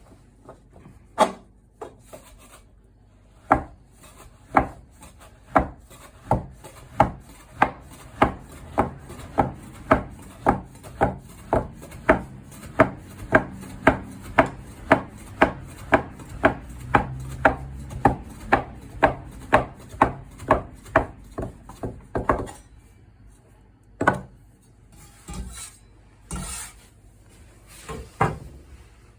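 Soba knife cutting folded buckwheat dough against a wooden board: a steady run of sharp chopping strikes that quickens from about one a second to about two a second, followed by a few scattered knocks near the end.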